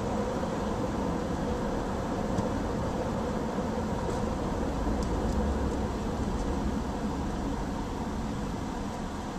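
Car driving at steady speed: a constant rumble of tyres on the road and engine, easing off a little near the end.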